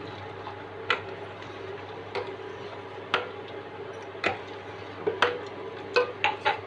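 Steel spoon clinking against the side of a stainless steel pot while stirring milk, in irregular sharp clicks about once a second over a steady low hum.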